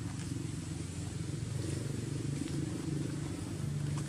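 A motor engine running steadily, a low hum that swells slightly near the end.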